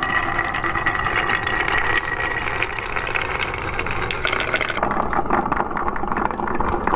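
Many glass marbles rolling down wooden tracks with carved zigzag grooves: a steady rolling rumble thick with rapid clicks as the marbles knock against the wood and each other.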